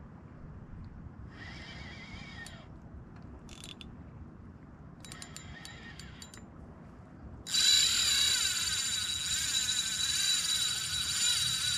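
Spinning reel's drag buzzing as a hooked pike pulls line off: two short runs, a few clicks, then a longer, much louder run starting about seven and a half seconds in.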